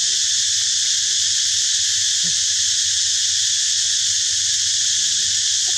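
Steady, unbroken high-pitched drone of a forest insect chorus.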